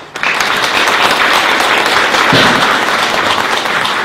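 Audience applauding, a loud dense clapping that breaks out all at once.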